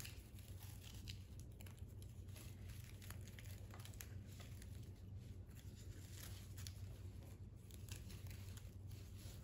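Faint rustling and crinkling of fresh greenery and flower stems being handled and bound with floral wire, with scattered small clicks, over a steady low hum.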